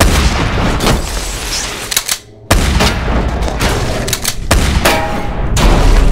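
Action-film sound effects: dense gunfire and sharp crashing impacts, breaking off for a moment about two seconds in, then coming back, with a heavy low rumble near the end.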